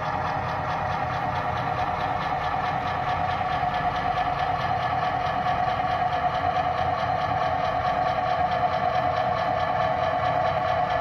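Model diesel locomotive running slowly, its engine sound steady and growing slightly louder as it comes closer.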